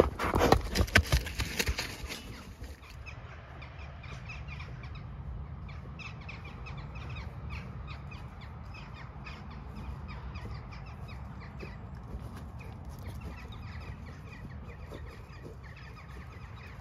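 Loud knocks and scuffs for the first two seconds as a small black pony moves right beside the ground-level microphone. After that, a steady low wind rumble with birds calling in the background.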